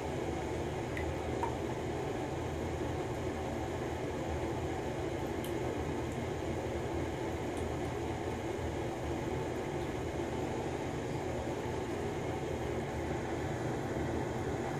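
Steady low hum and hiss of background noise, even throughout with no distinct events.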